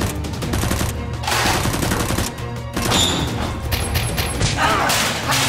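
Rapid, repeated gunfire sound effects over background music, standing in for Nerf blaster shots.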